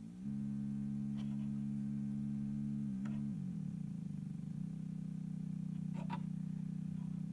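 EMS Synthi envelope shaper cycling at its fastest setting, so that its trapezoid output is heard as a low tone. The tone gets louder a moment in and wavers briefly around the middle as the attack and decay knobs are turned, with a few faint knob clicks.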